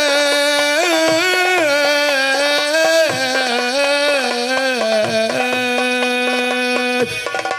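A man sings one long, ornamented 'Yā…' of a sholawat into a microphone, the pitch winding up and down through the melisma, then settling on one held note before breaking off just before the end. Hand drums tap softly underneath.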